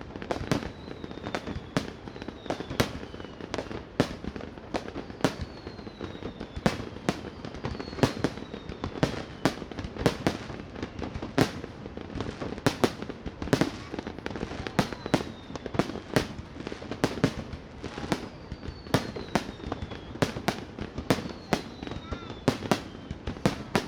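Fireworks display: a continuous, irregular run of sharp bangs, roughly two a second, with several whistles that fall slowly in pitch.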